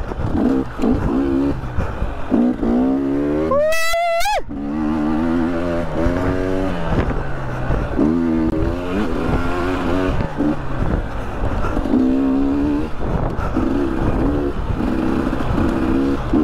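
300 cc two-stroke dirt bike engine being ridden hard. It revs up and backs off again and again, its pitch climbing with each pull. About four seconds in, one sharp high rev rises steeply and cuts off suddenly.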